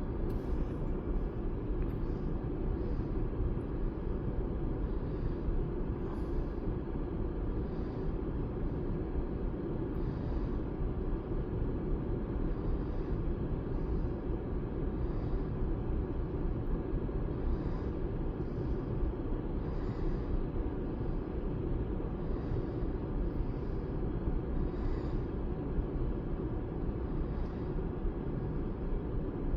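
Steady low rumble of the 2011 Chevy Equinox running, with no clear misfire heard.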